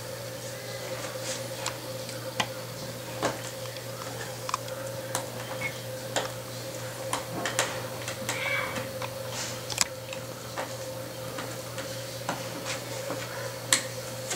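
Irregular light clicks and taps of small parts and screws being handled during laptop reassembly, over a steady electrical hum.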